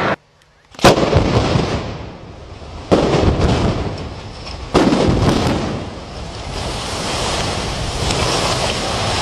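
Explosive demolition charges going off: three sharp blasts, about a second in, around three seconds and just before five seconds, each fading into a rumble. Then a concrete tower block collapsing, a long low rumble that grows louder toward the end.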